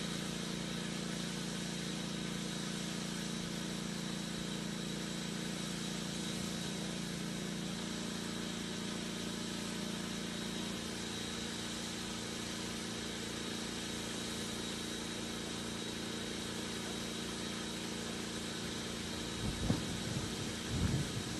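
Steady hum of an idling engine, with a few short knocks near the end.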